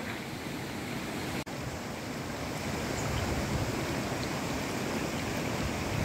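Water rushing at the foot of Bomburu Ella waterfall: a steady noise with a low rumble that grows slightly stronger partway through. The sound drops out for an instant about a second and a half in.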